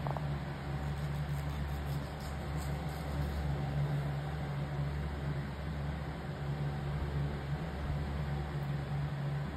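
Steady low mechanical hum with a faint hiss over it, unchanging throughout.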